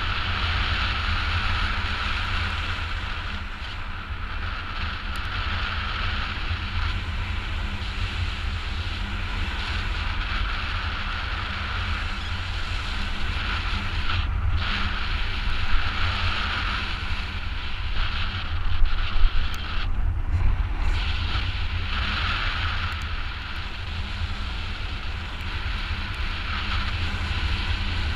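Wind buffeting a GoPro HERO4 camera's microphone during a paraglider flight: a steady rush with a heavy low rumble.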